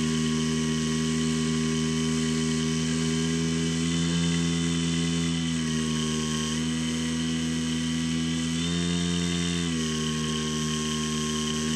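Skywalker X7 flying wing's electric motor and pusher propeller running steadily in flight. The pitch steps up briefly twice, about four and nine seconds in, as the throttle changes, then settles back.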